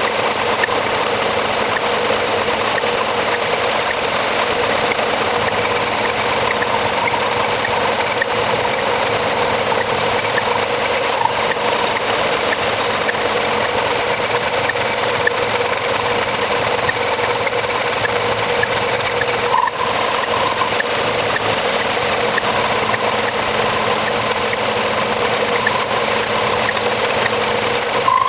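Metal lathe running steadily while turning a small metal tube into a bushing spacer: a constant machine noise with a steady hum through it, briefly dipping about twenty seconds in.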